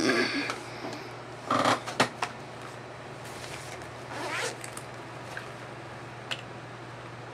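Makeup items being handled and sorted: a short rustle, two sharp clicks and, about four seconds in, a brief rasping scrape, over a steady low hum.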